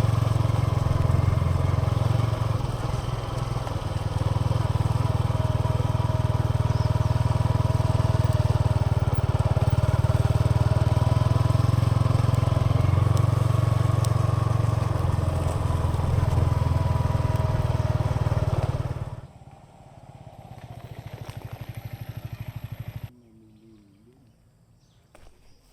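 Yamaha XSR 155's single-cylinder engine and exhaust running steadily under way. About three-quarters of the way through it drops away sharply to a quieter running for a few seconds, then stops abruptly near the end.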